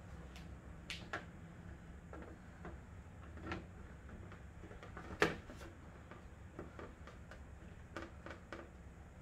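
Scattered light clicks and knocks from hand work on plastic trim pieces and screws, with one sharper knock about five seconds in, over a low steady hum.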